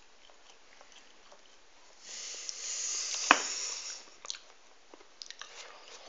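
A person's breath and mouth sounds while eating hot chili peppers: a hissing breath about two seconds in that lasts about two seconds, with a sharp mouth click in the middle, then small clicks of chewing. The hissing breath is a reaction to the chili's burn.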